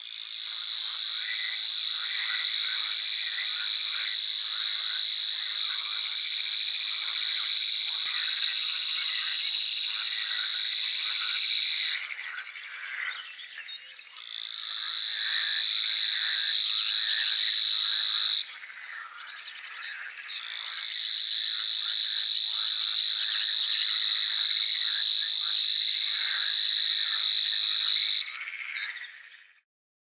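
Savi's warbler reeling: three long, steady, high-pitched trills, the first about twelve seconds long, then one of about four seconds and one of about seven, with short pauses between. Fainter chirps of other birds run beneath.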